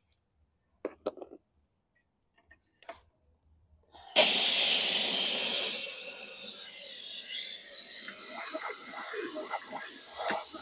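Compressed air from an air hose blasting into the cylinder of a Briggs & Stratton mower engine through the spark plug hole to force out water: a sudden loud hiss starts about four seconds in, then eases after a couple of seconds to a steadier hiss with irregular spluttering underneath. A few light handling clicks come before it.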